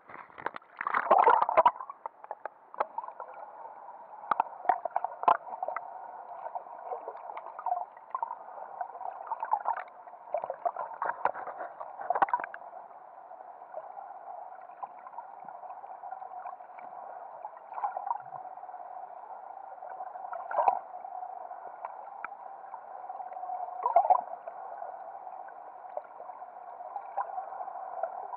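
Water sound heard through an action camera's housing while snorkeling: a steady muffled rush with scattered clicks and pops. A louder splash comes about a second in, as the camera dips from the surface back underwater.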